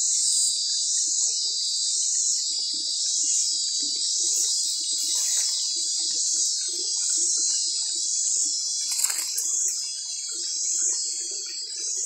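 Cicadas calling in a steady high-pitched chorus that swells and fades in a regular pulse, a little more than once a second.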